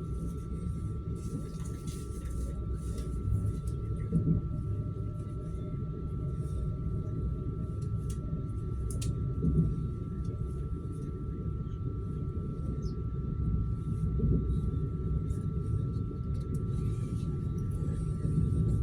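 Suburban electric train running between stations, heard from inside the carriage: a steady low rumble of the wheels on the rails with a constant high whine and occasional clicks.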